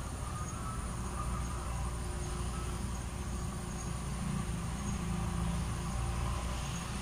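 Steady background of insects chirping, with a low hum underneath.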